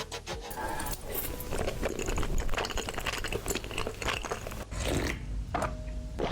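Close-up chewing and biting of crunchy food, a quick irregular run of crisp crunches.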